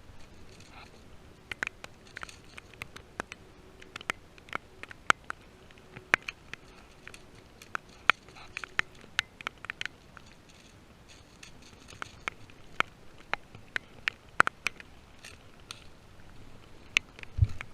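Irregular sharp clicks and snaps, several a second at times and sparser at others.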